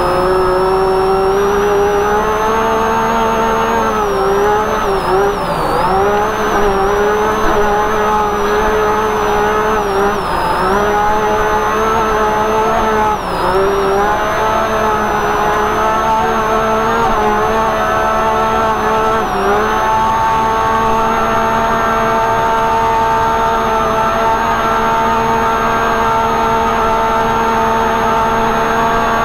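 UTV engine running hard under way, heard from inside the open cab. Its pitch dips briefly about four times, as the throttle is eased, then holds steady for the last nine seconds or so.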